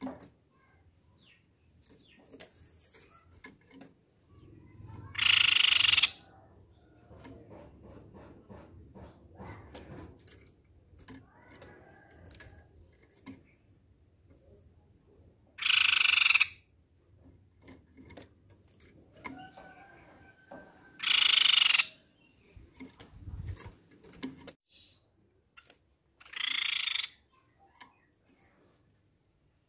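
Crescent-chested babbler (tepus pipi perak) calling: four calls of about a second each, several seconds apart, the last one quieter. Faint taps and clicks between the calls, and a low thump shortly before the last call.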